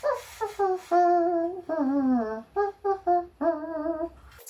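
A person humming a short, jaunty tune in a series of short and held notes, a couple of them sliding down in pitch.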